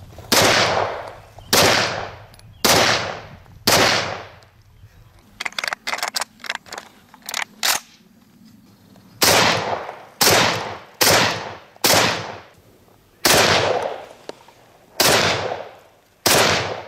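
SVT-40 semi-automatic rifle, chambered in 7.62×54mmR, firing single shots in quick succession, each echoing away: four shots about a second apart, a run of quieter sharp clicks in the middle, then seven more shots.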